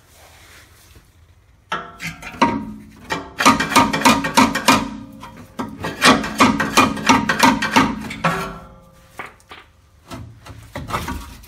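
Rapid metal clanking and scraping as a transmission crossmember is worked loose from the frame, in a quick run of sharp knocks with some ringing that goes on for several seconds, stops, then picks up again near the end.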